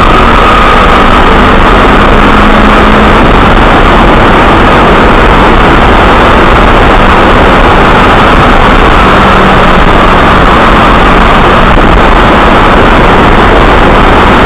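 Kawasaki Ninja 250R motorcycle's parallel-twin engine running at a steady cruising speed, mixed with heavy wind rush on the small camera's microphone. The sound is loud and unvarying, with no gear changes or revving.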